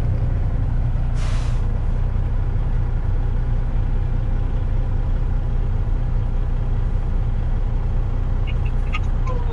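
Semi truck's diesel engine running with a steady low rumble, heard from inside the cab. A brief air-brake hiss comes about a second in.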